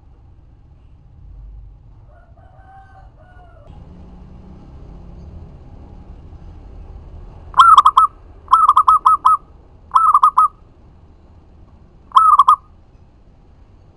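Zebra dove cooing: four loud bursts of quick, rapidly repeated staccato notes, the first coming about halfway in, the rest in quick succession over the next five seconds.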